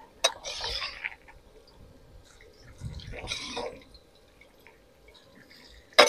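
Aluminium strainer of freshly fried shallots shaken and knocked against the wok over hot oil, with oil dripping back into the wok: a click and brief rattle near the start, and another short rattle about three seconds in.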